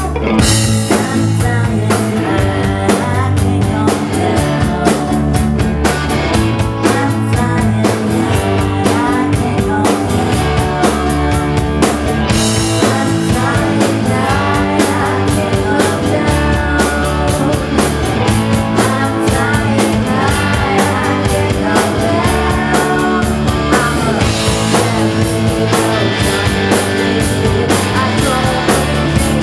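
A rock band playing live in a club: electric guitar, bass and drum kit, with the drums and full band coming in right at the start and continuing at a steady driving beat.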